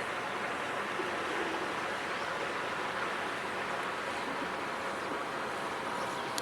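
Steady, even outdoor background noise, a constant hiss-like hum with no distinct birdsong standing out.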